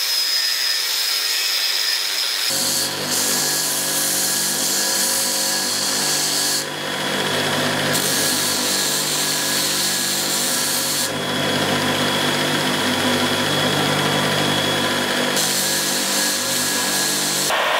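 An angle grinder grinding steel with a high-pitched whine for about two and a half seconds. Then a belt grinder runs with a steady motor hum while a small steel part is ground against the belt. The grinding hiss drops away twice as the piece is eased off and pressed back on.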